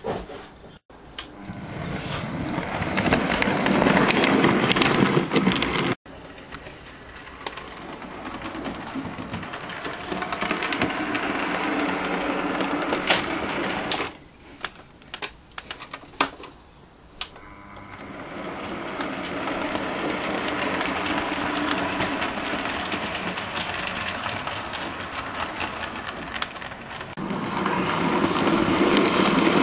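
Model J50 tank engine running on the layout: the small electric motor whirring and the wheels rattling and clicking over the track. It swells and fades several times as it comes near and goes away, with a quieter stretch of a few sharp clicks around the middle.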